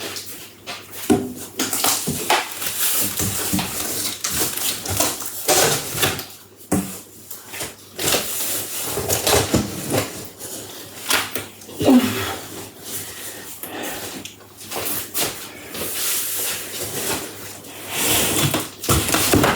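A large cardboard box and its packing being shifted and handled: irregular rustling, scraping and knocks throughout.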